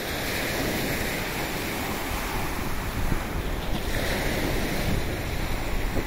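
Small waves breaking on a pebble beach, with water hissing over the stones and surging twice, the second time about four seconds in. Wind rumbles on the microphone underneath.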